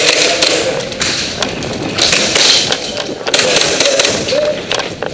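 Dull thumps and taps with bursts of rustling noise close to the microphone: footsteps and gear movement of a player moving quickly.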